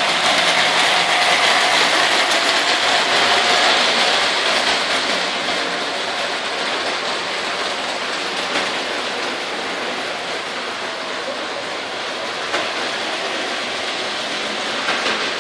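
O gauge electric toy trains running on three-rail metal track: a steady rolling rumble of wheels and motors, a little louder in the first few seconds with a faint whine that fades out.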